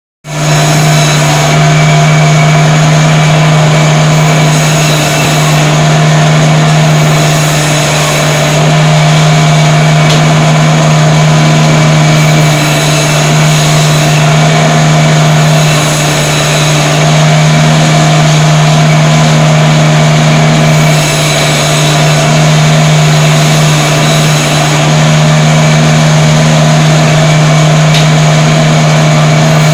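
Electric beef-cutting machine running: a loud, steady motor hum with mechanical noise, dipping slightly in level every few seconds.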